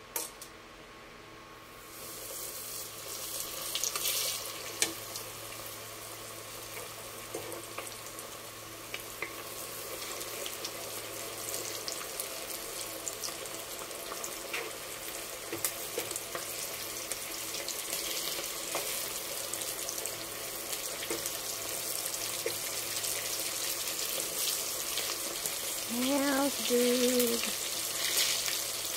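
Flour-coated chicken drumsticks deep-frying in hot oil in a pot: a steady crackling sizzle that starts about two seconds in, as the pieces go into the oil, and grows fuller over the following seconds.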